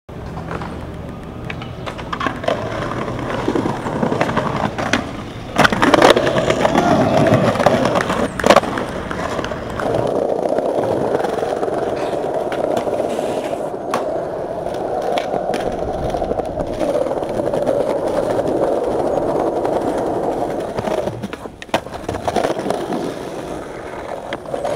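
Skateboard wheels rolling over paving with a steady rumble, broken by several sharp clacks of the board, the loudest about six and eight and a half seconds in.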